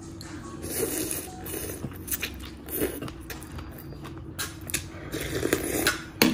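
Close-miked eating of noodle soup: chewing and mouth noises come in irregular bursts. Sharp clicks of utensils against the bowl are heard, the loudest just before the end.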